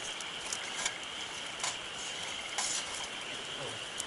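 Wood campfire crackling: a few sharp pops scattered through, one slightly longer crackle about two and a half seconds in, over a steady hiss.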